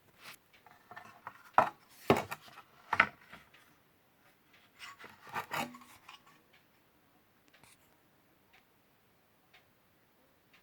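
Handling noises: rubbing scrapes and sharp clicks and knocks, with the loudest knocks in the first half and a second group of scrapes about halfway through, then only a few faint ticks.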